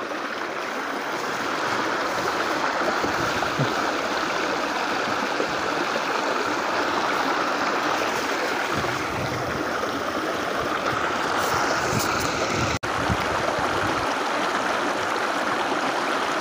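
Shallow stream water rushing and splashing steadily over rocks in a small riffle.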